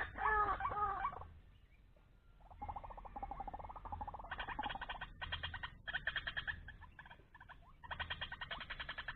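Birds calling: a few short curving calls, then rapid, pulsing chattering trills that come and go.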